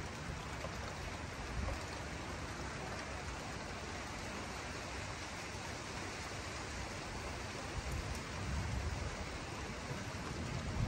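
Steady hiss of rain falling under a thunderstorm sky, with a low rumble underneath that swells slightly near the end.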